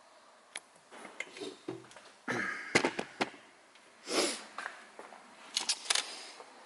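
Small metal valve parts of a Rolls-Royce Silver Shadow brake accumulator control valve being handled and set down on a workbench: a run of sharp clicks and light knocks, loudest between two and three seconds in, with a short breathy noise about four seconds in.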